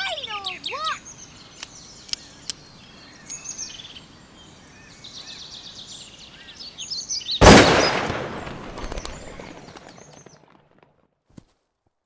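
A single pistol shot about seven and a half seconds in, sudden and loud, its echo fading over about three seconds. Woodland birds sing before it.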